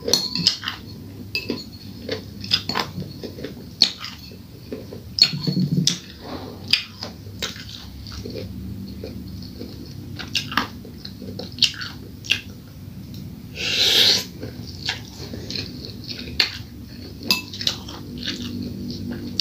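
Metal spoon clinking and scraping against a bowl in many short, sharp clicks, with close-up chewing of noodles.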